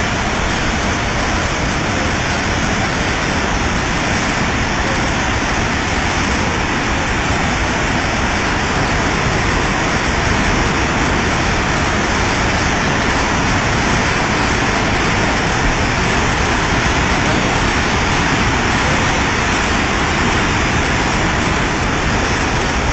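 Flash-flood torrent of muddy water rushing under a bridge arch: a loud, steady rush that doesn't let up.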